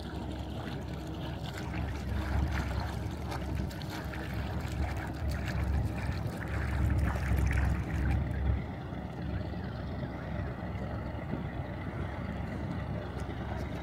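Wind rumbling on the microphone over water noise from a moving boat on a lake. The rumble swells louder between about two and eight seconds in, then eases.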